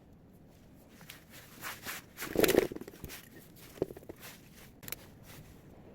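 Light rustling, scraping and a few sharp clicks of small objects being handled, loudest about two and a half seconds in.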